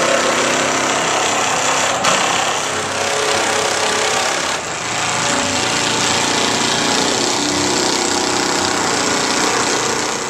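Cordless power drivers running in spurts, driving screws into wooden framing.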